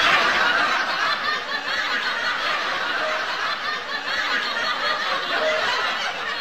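Boys laughing, a breathy snickering that slowly fades.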